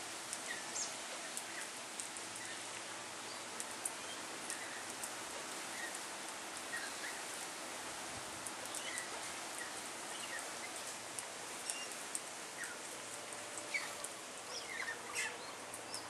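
Short bird chirps and calls scattered over a steady outdoor hiss, with many small sharp clicks; the calls grow busier and higher near the end.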